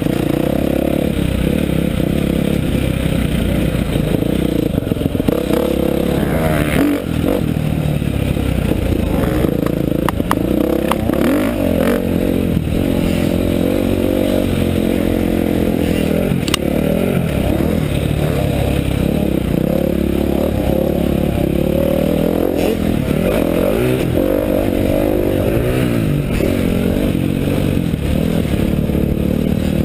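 Motocross bike engine heard from on board, revving up and falling back again and again through the ride, with wind rushing over the microphone and some clatter.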